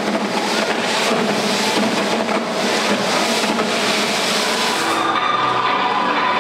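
A large indoor crowd applauding and cheering in a dense, steady wash of noise as paper confetti rains down; a steady tone joins about five seconds in.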